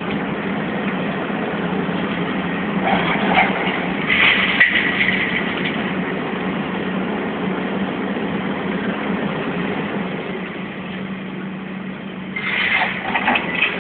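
Diesel engine of heavy demolition machinery running steadily with a low hum, with spells of clattering and a single sharp knock about four and a half seconds in.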